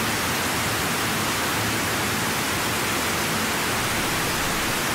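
Loud, steady hiss spread evenly from low to high pitch, with no clicks or tones standing out. It cuts in and out abruptly, like a laid-in sound effect.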